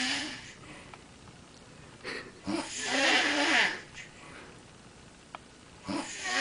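A woman snoring in her sleep: one full snore about two seconds in, lasting close to two seconds, and another starting near the end, with quieter breathing in between.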